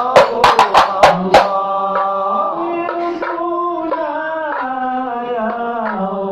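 Male voices singing a devotional chant through a microphone, over a quick run of sharp hand-drum strikes in the first second and a half; after that the singing goes on alone in long, sliding notes.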